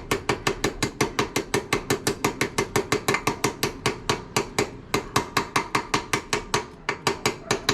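A hammer tapping a new steering-head bearing into place on a motorcycle, in quick, light metallic taps at an even pace of about six a second, each with a short ring.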